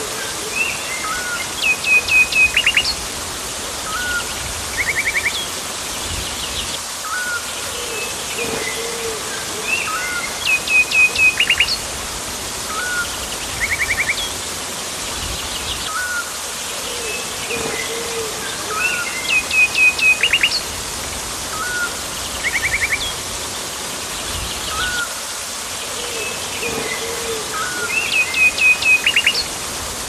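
Rainforest birds chirping and trilling over a steady rush of falling water. The same run of short chirps, whistled notes and quick trills comes back about every nine seconds.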